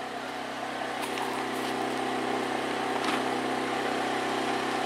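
A steady engine-like hum with several even tones that does not change, and a couple of faint footsteps.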